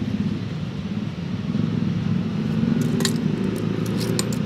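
A steady low mechanical rumble, with a few short sharp clicks about three seconds in as a steel bonsai cutter snips off small twigs.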